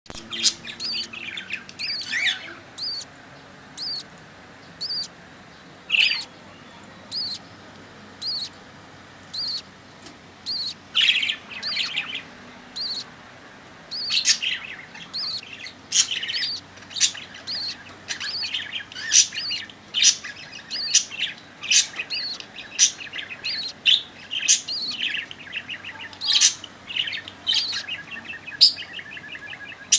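Budgerigars chirping: short, high chirps about once a second at first, then coming faster and more crowded from about halfway on, with quick runs of rapid chirps near the end.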